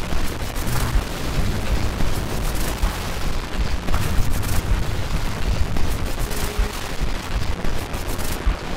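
Loud, harsh static noise with dense crackling over a steady low rumble, a distorted glitch sound effect.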